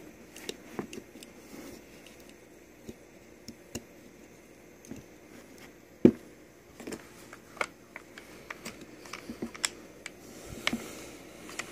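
Scattered small clicks and knocks of objects being handled close by, with one louder knock about six seconds in.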